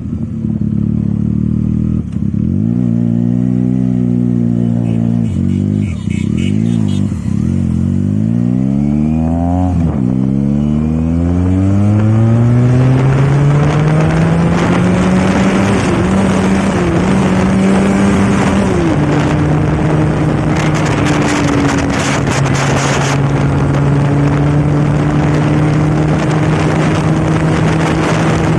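Benelli TNT 300's 300 cc parallel-twin engine through an aftermarket exhaust while riding: a few short rises and falls in engine speed in the first ten seconds, then a long climb in pitch through the gears with brief dips at the shifts, settling into a steady cruise for the last third. A rushing noise grows as speed builds.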